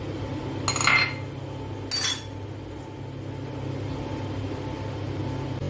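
Metal spoon clinking twice against the steel grinder jar and a glass bowl, about one and two seconds in, as it is put down. A steady low hum runs underneath.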